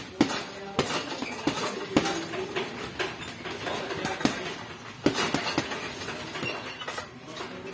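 Boxing gloves punching a hanging teardrop heavy bag: sharp thuds at irregular intervals, some landing in quick runs of two or three.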